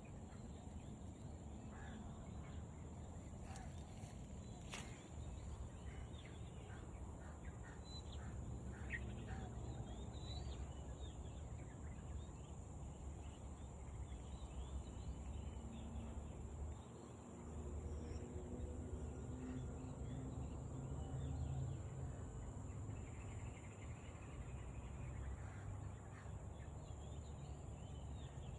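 Faint bird calls, short and scattered, over a steady low rumble and a steady high hiss.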